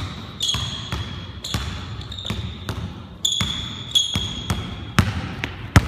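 A basketball being dribbled on a hardwood gym floor in a cone drill: irregular bounces, roughly one or two a second, several followed by a short high-pitched ring.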